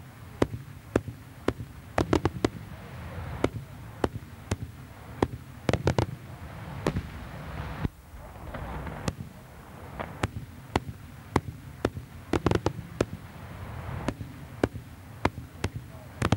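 Daytime aerial fireworks: a rapid, irregular run of sharp bangs from shells bursting overhead, roughly two a second, with tight clusters of several bangs at once about two, six and twelve seconds in, over a low rumble.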